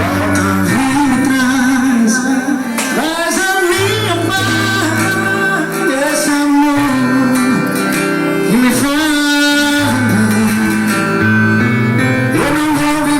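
A forró song: a voice singing over plucked guitar and held notes.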